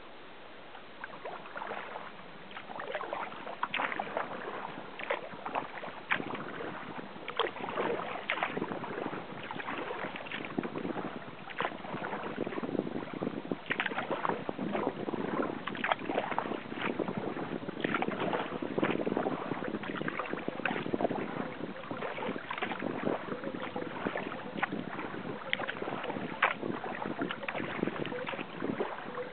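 Kayak paddle blades dipping and splashing in calm water, with water washing along the sea kayak's hull in an irregular run of small splashes and drips; the splashing picks up about a second or two in.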